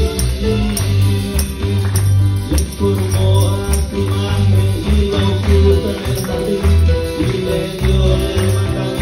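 Live church worship band playing an upbeat song, with a heavy bass line and a steady beat.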